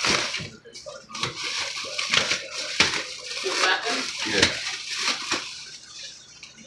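Repeated knocks and metallic clatter, with people talking.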